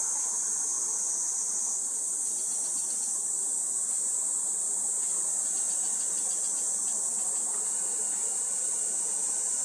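Insect chorus: a steady, high-pitched drone that does not let up.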